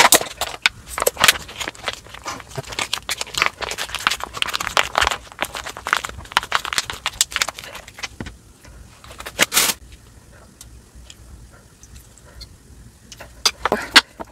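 Plastic spout pouch of spicy sauce crinkling and crackling as it is handled and squeezed out, with one louder rustle about nine seconds in. Then quieter, with a few light clicks near the end.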